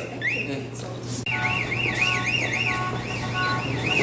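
Electronic anti-theft alarm of a weight-sensing stroller safety pad, the signal that the baby has been lifted off the pad. It gives rising whoops about twice a second, then switches a little after a second in to a fast warbling siren.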